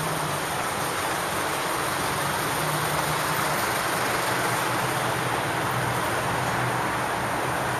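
Steady road traffic noise from cars running along a busy street, with a low engine hum that comes up more plainly about three seconds in.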